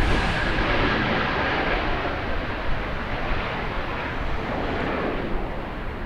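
Airbus A321neo airliner's jet engines running as it rolls past on the runway: a steady rumble and roar with a faint whine over the first couple of seconds, slowly fading as it moves away.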